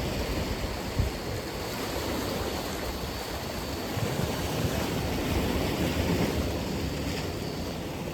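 Atlantic Ocean surf washing ashore: a continuous wash of breaking waves that swells a little in the middle, with a low rumble underneath.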